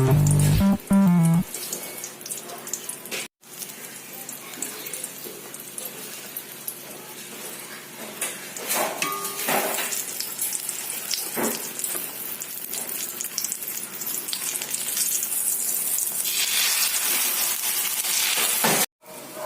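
Oil sizzling and crackling in a frying pan as an eggplant omelette (tortang talong) fries, with a short stretch of background music at the start. The sizzle grows louder after the middle and cuts out briefly twice.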